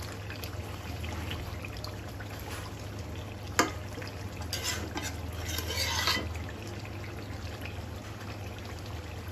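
A long metal spatula stirring and scraping a thick curry in a metal karahi, with one sharp clank of the spatula against the pan about three and a half seconds in and a stretch of scraping soon after. A steady low hum runs underneath.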